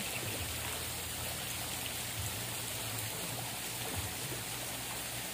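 A steady hiss of splashing, running water.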